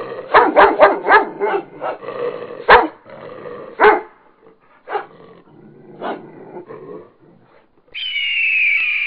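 Dog barking and yipping in short sharp calls: a quick run of about five in the first second, then single barks spaced about a second apart. Near the end comes a higher sound whose pitch falls.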